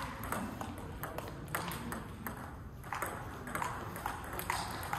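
Table tennis ball ticking sharply against bats and the table, a click roughly every half second, with a brief lull about two and a half seconds in.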